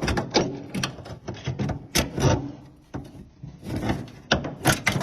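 Vise grips (locking pliers) working a metal door-trim clip: a string of irregular metallic clicks and clacks as the jaws clamp and squeeze the clip small enough to pass back through its hole in the door.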